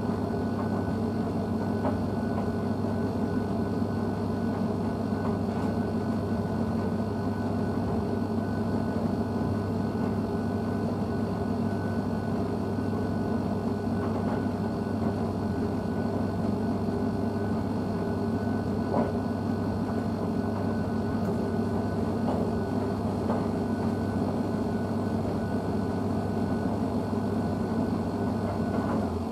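Blomberg WNF9448 washing machine running with a steady low electrical hum while the drum stands still between its tumbles; the hum cuts off at the very end.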